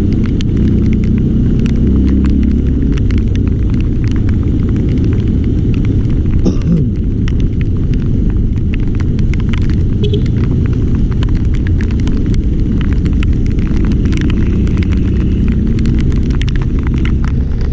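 Strong wind rumbling on the microphone, with many small ticks of rain hitting it.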